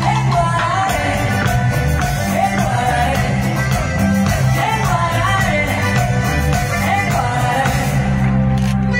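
A woman singing a melody with a band accompanying her, with steady bass and drums underneath.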